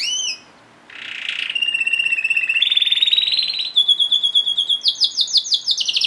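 Red domestic canary singing: a short swooping note, then a chain of rapid trills, each held about a second, stepping up in pitch, a held whistle, and a run of quick falling notes near the end.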